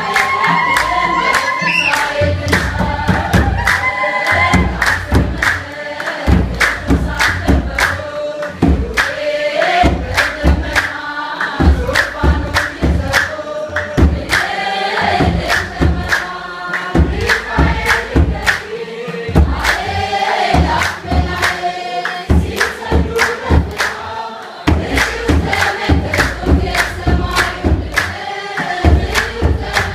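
A crowd singing a hymn together to steady hand clapping and the deep beats of kebero drums.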